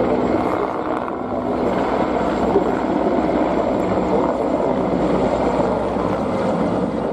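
Three military helicopters flying over in formation: the steady noise of their rotors and engines.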